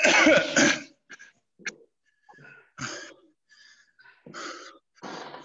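A person out of breath just after a hard workout: a loud heavy exhale at the start, then a string of short, irregular breaths about a second apart while they recover.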